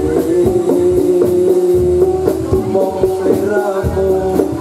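Live jathilan accompaniment music: drum strokes keeping a steady dance beat under a pitched melody line, with one long held note in the first two seconds.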